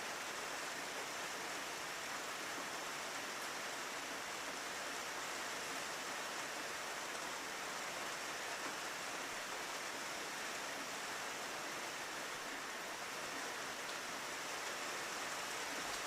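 Steady rain falling on a window, an even hiss of drops that does not change.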